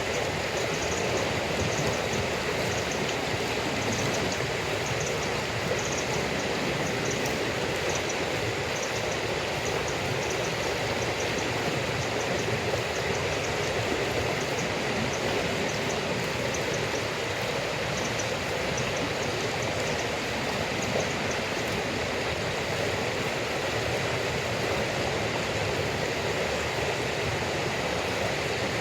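Steady rushing water noise, even throughout, with faint quick ticks in the first half.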